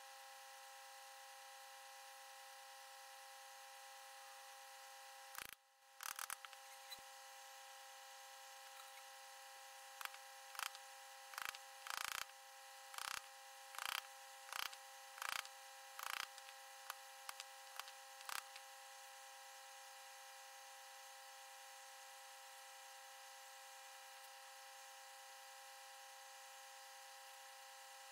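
Wood chisel being struck to chop out a bowtie-key recess in a timber block. A few sharp knocks come about five seconds in, then about a dozen more, roughly one every half second to second, stopping about eighteen seconds in. A steady faint hum with a whine in it runs underneath.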